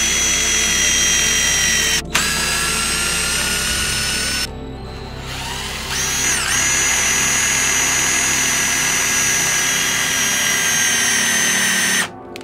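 Handheld power drill running at high speed with a steady high-pitched motor whine, drilling and countersinking screw holes in plywood. It cuts out briefly about two seconds in and drops away for a second and a half near the middle. It then spins back up with a short dip in pitch and runs until just before the end.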